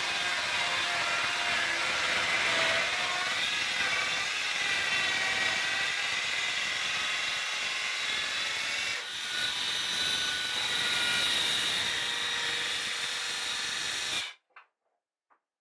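Handheld circular saw running under load as it rips along a line through a plywood sheet, a steady whine with a wavering pitch. It cuts off suddenly about fourteen seconds in.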